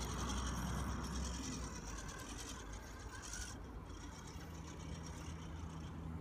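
Mini RC rock crawler's Xtreme 380X electric motor and drivetrain gears whirring under load as it climbs a rock face. The whir drops away about three and a half seconds in as the crawler crests the top.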